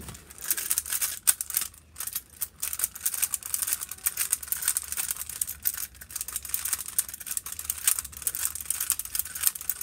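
A Rubik's cube turned rapidly by hand during a timed speed run: a fast, continuous clatter of plastic layers clicking and rattling as they are twisted over and over.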